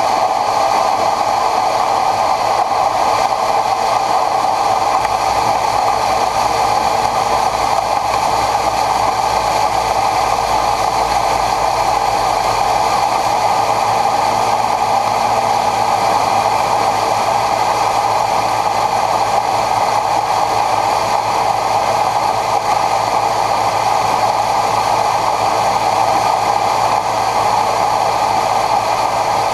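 John Deere 9500 combine harvester running steadily.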